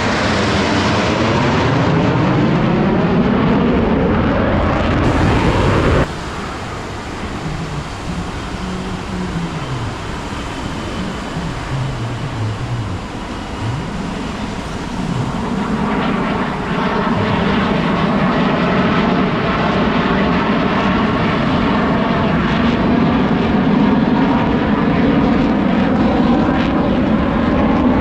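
US Navy Blue Angels F/A-18 Super Hornet jets flying past. The first jet passes with a falling pitch and cuts off suddenly about six seconds in, leaving a quieter rumble, and then a loud, steady jet sound builds up again past the halfway point.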